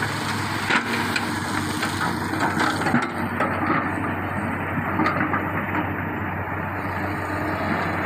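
XCMG XE210i crawler excavator's diesel engine running steadily under load while its bucket digs into a pile of red overburden, with crunching and scraping of stones and earth over the first half.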